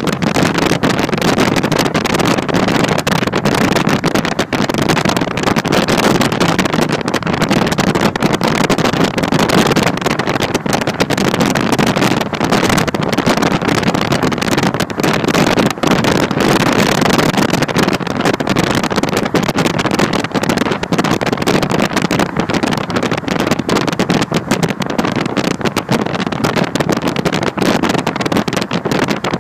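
Steady rush of wind and road noise from a car travelling at highway speed, with the wind buffeting the phone's microphone.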